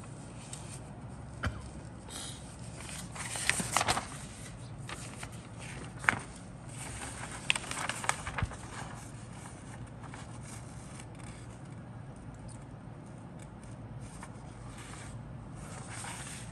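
Paper instruction sheet rustling and crinkling as it is unfolded and handled, in several short bursts in the first half, over a steady low hum.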